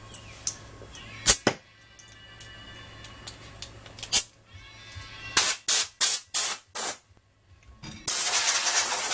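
Aerosol cleaner can spraying: five short squirts in quick succession, then one long continuous spray starting near the end. Two sharp clicks come before the squirts.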